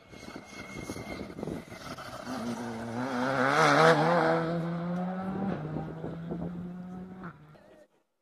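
Rally car engine at high revs coming through the corner, the pitch rising and the sound loudest about four seconds in as it passes. About five and a half seconds in the engine note steps down once, then it fades away and cuts off just before the end.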